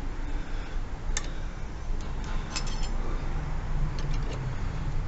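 Scattered light metallic clicks and clinks as a steel motorcycle brake pedal and its pivot parts are handled and lined up, a few separate clicks with a short cluster in the middle, over a steady low rumble.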